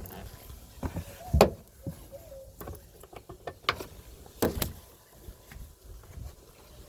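Scattered clicks and knocks of plastic taillight parts being handled and pushed into place while the rear turn signal bulb's cap is refitted. The loudest knock comes about a second and a half in, and another about four and a half seconds in.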